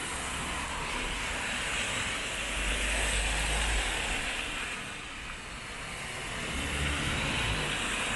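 Rainy city street: a steady hiss of rain and wet pavement over a low traffic rumble that swells twice as vehicles pass.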